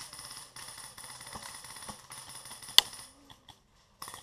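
A steady, fine rattling hiss with one sharp airsoft shot cracking about three seconds in. The sound then drops almost to silence for about a second.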